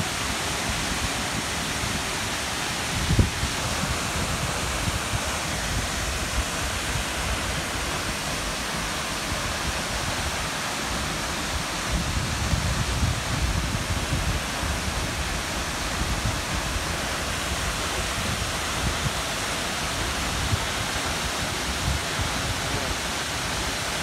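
A waterfall's steady rush of falling water, a hiss spread evenly from low to high pitches. A low rumble swells and fades underneath, with a brief low thump about three seconds in.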